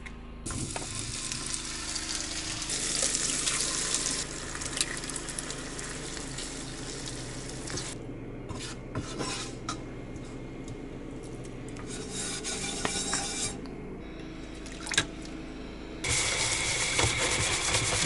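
Home cooking sounds in quick succession: a knife cutting sausage on a plastic cutting board, sausage and eggs sizzling in a frying pan as a spatula stirs and scrapes them, and plates and utensils clinking. A louder steady hiss of water runs in the last couple of seconds as dishes are washed in the sink.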